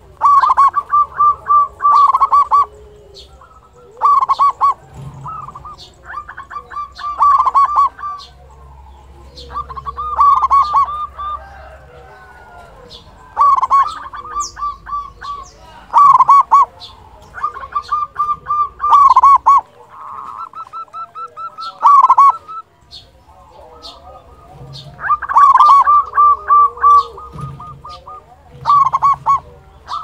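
Zebra dove (perkutut) in full song: phrase after phrase of rapid staccato coos, a new phrase every two to three seconds, with faint high chirps between them.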